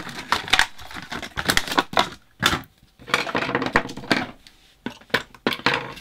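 Clear plastic packaging crinkling and rustling in the hands as it is opened and its contents pulled out, with irregular crackles and small clicks.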